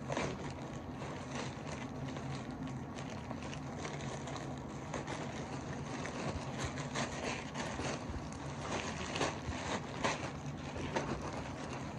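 Plastic poly mailer bag rustling and crinkling as it is handled and opened, the crackling getting busier after about six seconds, over a steady low hum.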